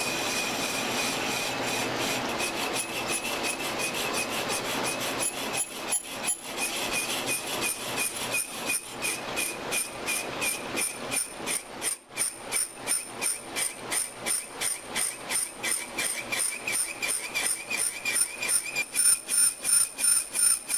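Metal lathe cutting a recess inside a cast-iron pillow-block bearing housing with a small internal boring tool: a steady scraping cut with a high whine. About a quarter of the way in, the sound starts pulsing evenly, two or three beats a second.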